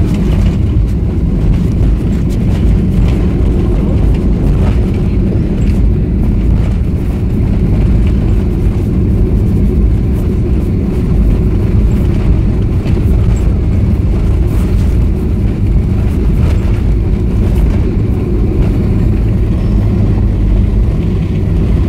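Steady low rumble inside the cabin of a Boeing 737-500, heard over the wing as the airliner rolls along the runway after touchdown with its ground spoilers up. The rumble is a blend of engine noise and the wheels on the pavement.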